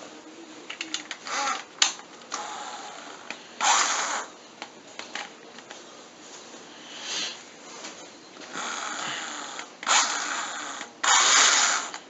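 Power drill run in short bursts of about half a second to a second, twisting locks of hair against the scalp, with the longest burst near the end.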